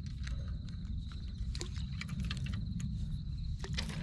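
Spinning fishing reel being handled and cranked, giving light irregular clicks over a steady low rumble, with a faint steady high tone throughout.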